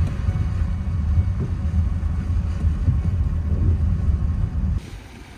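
Steady low rumble of a car driving, road and wind noise, which drops to a quieter level near the end.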